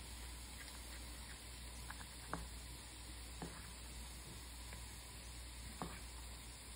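A kitchen knife cutting through stacked fish cake sheets and knocking on a wooden cutting board: three sharp knocks spread a second or more apart, with a few fainter clicks of the pieces being handled, over a faint steady hiss.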